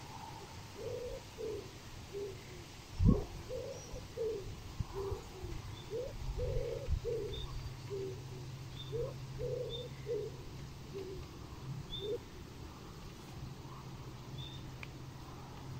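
Outdoor lakeside sound with a run of short, low cooing or hooting calls, a couple a second, that fade out after about twelve seconds. Faint high bird chirps sound over them, a low steady hum runs underneath, and a single loud thump comes about three seconds in.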